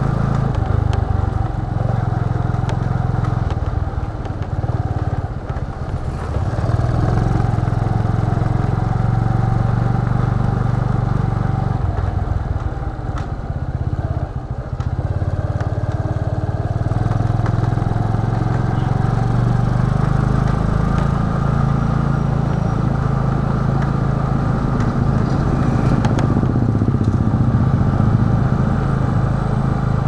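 Motor scooter engine running steadily as it rides along, easing off twice briefly and then picking up again.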